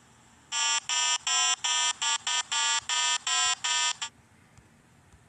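Electronic buzzer-like beeping sound effect: a quick run of about ten identical beeps, roughly three a second, that stops about four seconds in.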